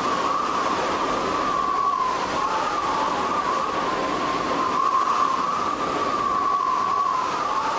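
Hurricane-simulator wind tube's blower running at full power, blowing at about 60 to 80 mph: a steady rush of air over a strong fan whine that wavers slightly in pitch.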